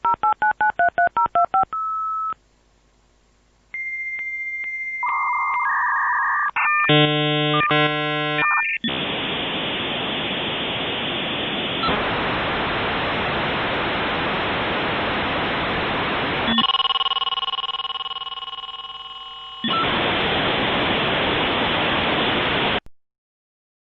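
Dial-up modem connecting: about a dozen quick touch-tone digits are dialed, then after a short pause comes a steady high answer tone, then warbling and chirping handshake tones. A long loud hiss follows, broken about 17 s in by a stretch of fading buzzy tones. The hiss returns and cuts off suddenly near the end.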